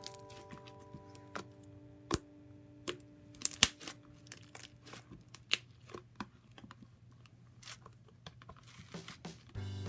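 Slime being squeezed, stretched and poked by hand, making irregular sticky pops, clicks and crackles.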